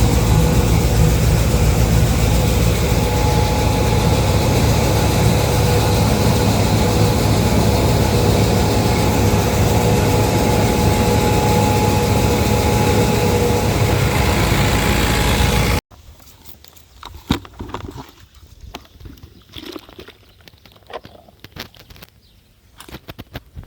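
Grain crusher grinding bird feed, running steadily with a faint whine over its noise, then cutting off abruptly after about 16 seconds. Quiet, irregular light clicks and rustles follow.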